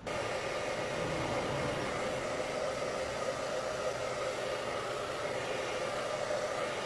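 Hand-held hair dryer comes on abruptly and blows steadily, a even rush of air with a steady motor hum, drying freshly coated photo emulsion on a screen-printing screen.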